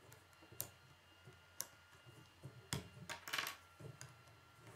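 Plastic K'nex rods and connectors being handled and snapped together: single sharp clicks about a second apart, then a quick cluster of rattling clicks a little past the middle.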